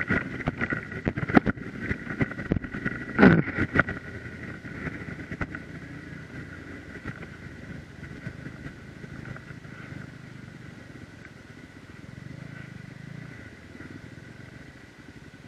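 Hero XPulse 200 4V's single-cylinder engine running at low speed on a rough dirt track. For the first few seconds knocks and rattles come from the bike jolting over potholes, the loudest a sharp bang about three seconds in. After that the engine runs more steadily as the bike slows.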